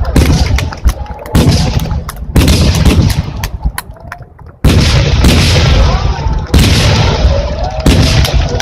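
Aerial firework shells bursting in quick succession: about six heavy booms, one every second or two, with crackling between them and a short lull in the middle.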